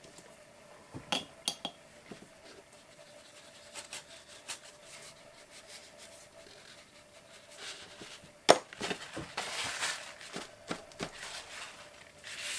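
Soft pastel sticks being handled on a worktable: a few small clicks and clinks as they are picked up and set down, the sharpest about two-thirds through, with brief scratchy rubbing of pastel on paper just after it and again near the end.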